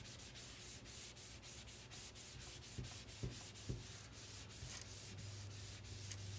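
A damp cloth rubbed quickly back and forth over a MacBook Pro's aluminium unibody case, a rhythmic swishing of about four to five strokes a second, with three light knocks around the middle.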